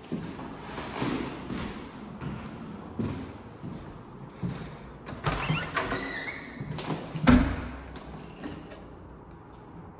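Footsteps and handling knocks on hardwood floors, a short squeak about six seconds in, then a heavy thump about seven seconds in as a closet door is pulled open.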